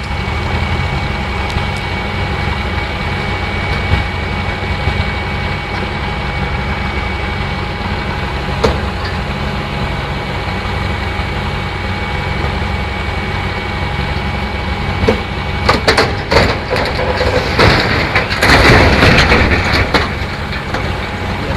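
Heavy diesel engine running steadily, with a thin high whine over it. About sixteen seconds in, a run of sharp knocks begins, followed by a loud, rough noisy rush lasting about two seconds.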